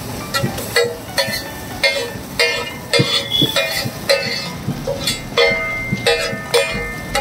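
Flat steel spatula striking and scraping a large iron tawa as potato and tomato are chopped and mashed on it. Sharp metallic clanks come about twice a second, each ringing briefly.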